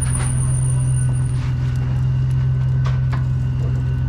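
A steady low mechanical hum, like a motor or engine running, with a few faint clicks and taps.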